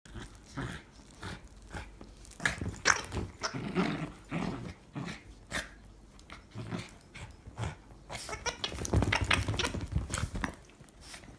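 A dog growling as it attacks and mauls a toy, with irregular sharp noises from the struggle, busiest near the end.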